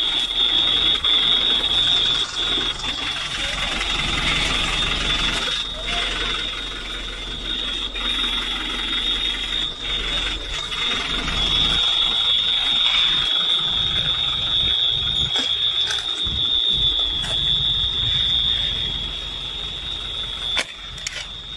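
An electronic alarm sounding one steady, high-pitched tone, over a low rumble that fades out about halfway through.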